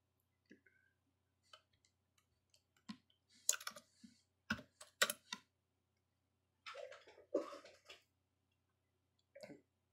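Quiet, scattered keystrokes and clicks on a computer keyboard, in short runs with pauses between, busiest in the middle.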